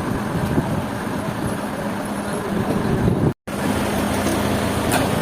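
Engine running steadily with a constant low hum. It drops out for a moment about two-thirds of the way through, then carries on unchanged.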